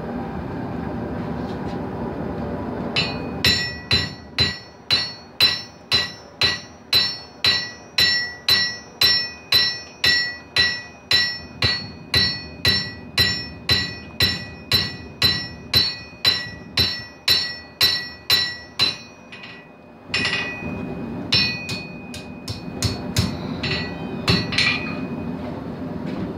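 Blacksmith's hand hammer forging hot steel on an anvil: about two ringing blows a second for some fifteen seconds, then a short pause and a few slower, scattered blows. A steady noise from the running forge lies underneath.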